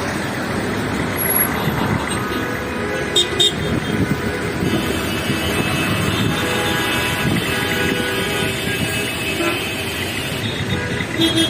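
City road traffic running steadily, with car horns tooting and held through the second half.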